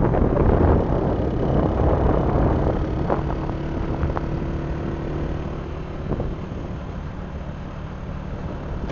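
A vehicle's engine and road noise, a steady low hum under rushing noise, with three light knocks around the middle.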